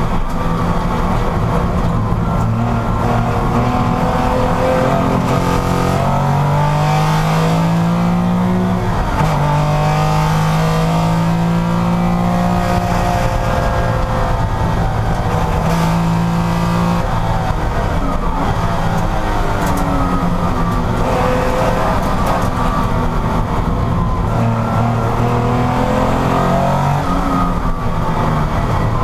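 Porsche racing car engine running hard under acceleration, its pitch climbing and then dropping sharply at each gear change, with several shifts across the stretch.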